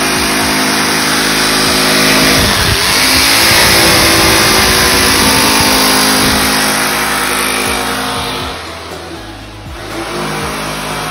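Corded jigsaw cutting through a sheet of Paxolin (SRBP) board, its motor running loud and steady. It goes quieter for about a second near the end, then runs on again.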